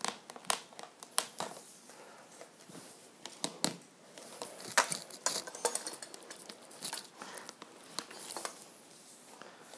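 Lengths of PVC pipe being pushed and twisted into plastic pipe fittings, giving irregular light clicks and knocks of plastic on plastic.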